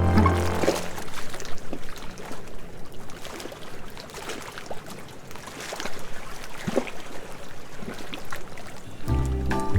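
Sea water washing and lapping at the shore, with irregular small splashes and trickling. Background music fades out at the start, and a new music track begins near the end.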